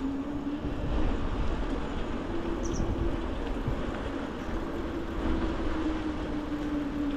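Norco Storm mountain bike being ridden: steady rushing wind and tyre noise with a low, even hum underneath.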